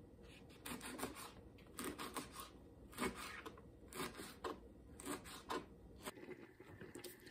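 Kitchen knife slicing through a rolled bundle of raw collard green leaves onto a plastic cutting board, cutting them into ribbons. A run of short cutting strokes starts about a second in, coming in quick groups of two or three.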